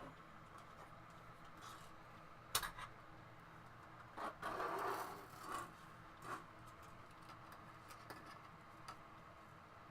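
Faint handling noise on a workbench: a sharp click about two and a half seconds in, a short rustle around five seconds, and a few light taps, over a low steady hum.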